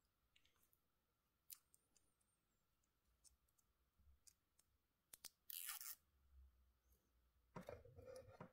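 Faint clicks of a watch's metal folding deployant clasp on a rubber strap being handled, with a short rustle a little past halfway and a cluster of scraping handling noises near the end.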